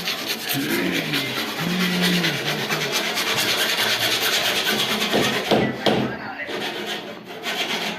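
Fast, continuous rasping scrape of tool work, like filing or sawing, with a few louder knocks about five to six seconds in.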